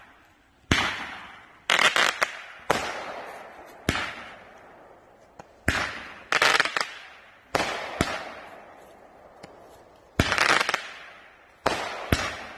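World Class Beyond The Glory 5-shot roman candles firing, several going at once: about fourteen shots at irregular spacing, each a sudden pop that trails off over about a second.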